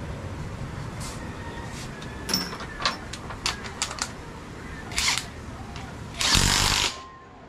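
Metal tools and parts clinking and knocking in a series of sharp clicks, then a loud burst of a workshop tool, under a second long, about six seconds in.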